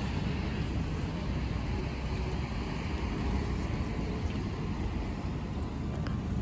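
Road traffic at a bus terminal: a steady low rumble of bus and car engines running and moving.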